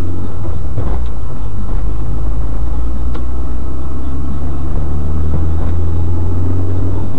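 Car driving, with a steady low rumble of engine and road noise.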